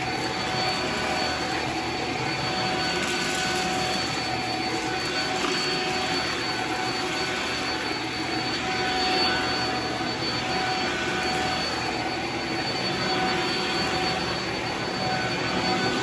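Shark Flex cordless stick vacuum running steadily as its floor head is pushed over carpet: an even rush of air with a steady motor whine and a high tone over it.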